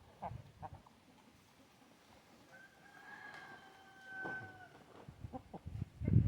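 A rooster crows once, a single drawn-out, fairly faint crow of about two seconds in the middle, among short clucks from the flock. A louder low thump comes near the end.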